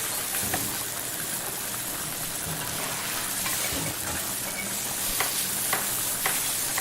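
Restaurant kitchen ambience: a steady sizzle of food frying in pans under a high hiss, with scattered light clicks and clinks of utensils and cookware.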